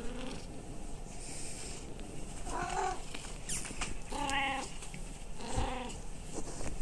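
Domestic cat meowing three times, short calls about a second and a half apart.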